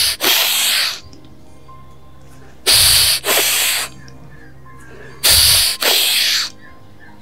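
A person breathing forcefully close to a clip-on microphone, in time with repeated yoga twists: three quick pairs of hissing breaths, about two and a half seconds apart.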